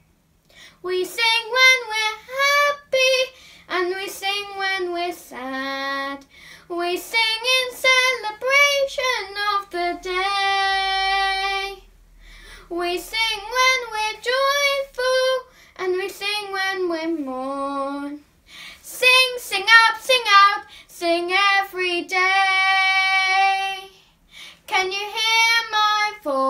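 A young girl singing solo and unaccompanied, starting about a second in, in phrases that often end on a long held note.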